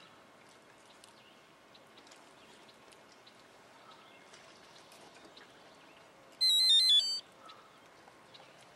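A quick run of high electronic beeps stepping in pitch, lasting under a second, about six and a half seconds in, over a faint background with scattered small clicks.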